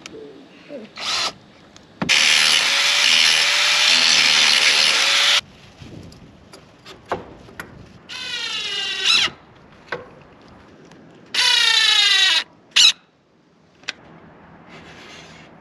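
Cordless drill driving into 2x2 pine framing in several separate runs. The first long run holds a steady pitch. The later, shorter runs drop in pitch as the motor slows under load while the bit or screw bites into the wood.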